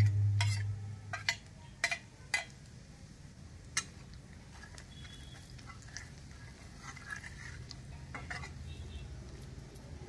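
A steel plate and a metal spatula clink against an aluminium kadai as spices are tipped into onion masala and stirred in. A low hum sits under the first second, then several sharp clinks follow over the next few seconds. Softer scraping of stirring fills the rest.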